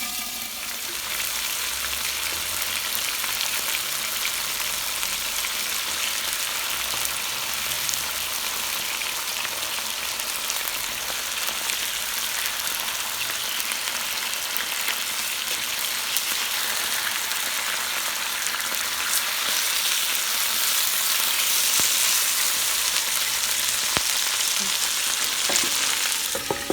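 Chicken pieces frying in a pot with a steady sizzle as they brown.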